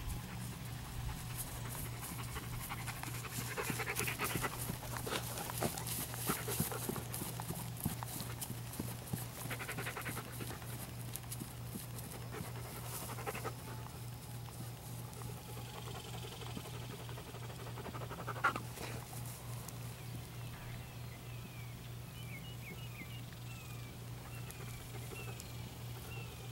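Peruvian Paso horse gaiting on grass under a rider: soft hoofbeats and panting breaths. They are loudest for several seconds a few seconds in as it passes close, then fade as it moves away.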